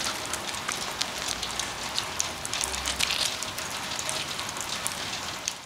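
Light rain falling on wet pavement: an even hiss with many small drop ticks.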